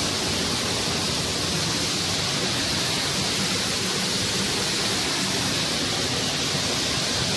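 Düden Waterfall's falling water, a steady, even rushing hiss.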